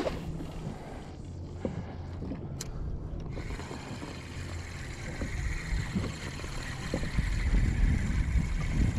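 Wind on the microphone and water slapping against a fishing kayak's hull, with a few sharp mechanical clicks from the gear. A steady hiss sets in about three seconds in, and heavier low buffeting comes near the end.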